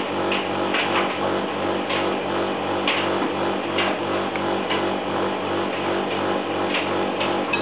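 Servis M2001W front-loading washing machine on its synthetics wash: the motor hums steadily with an even, regular pulse as the drum turns, and the wet laundry and water slosh with short irregular thuds and splashes.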